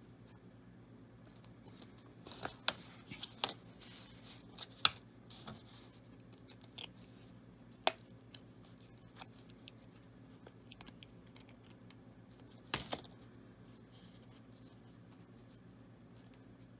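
Scattered light clicks and rustles of hands handling small objects on a paper-covered table, among them a super glue tube and a glued skate lace, with a cluster of sharper ticks between two and five seconds in and single ones near eight and thirteen seconds. A faint steady hum runs underneath.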